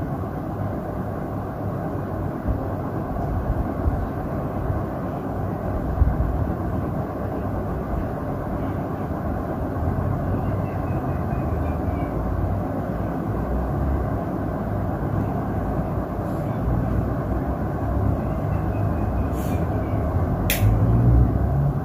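60-inch KDK industrial ceiling fan running: a steady rush of air with a low, unsteady rumble, and a single sharp click near the end.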